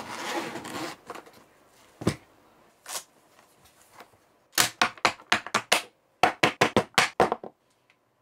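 Zippered carrying case being unzipped and opened by hand, a brief rustling hiss, followed by a few separate clicks and then two quick runs of sharp clicks and taps as its contents are handled.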